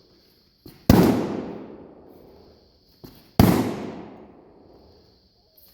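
Two heavy hammer blows on an old Sentry fireproof steel safe, about two and a half seconds apart, each a sharp metallic bang that rings on and fades over a couple of seconds, with a light tap just before each.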